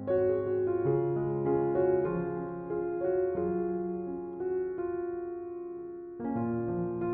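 Background music: a gentle solo piano melody, with notes changing about every half second and a new phrase beginning near the end.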